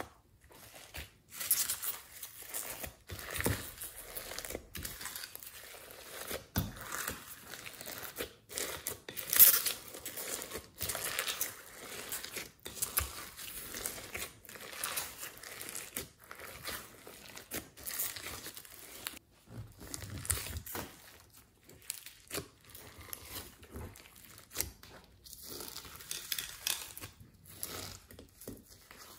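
Hands pressing and kneading glossy slime mixed with foam beads and glitter, giving an irregular stream of crackling and clicking, with a sharper pop about nine seconds in.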